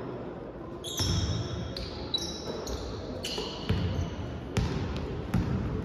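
A basketball dribbled on a hardwood court: about seven bounces, a little under a second apart, starting about a second in. Between them come short high squeaks of sneakers on the floor.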